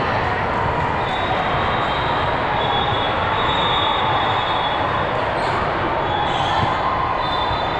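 Steady din of a busy indoor volleyball gym, with ball bounces and drawn-out high squeaks over the background noise.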